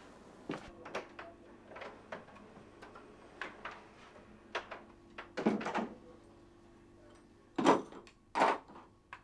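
An apartment front door opening and closing, with footsteps, then a few loud thumps near the end.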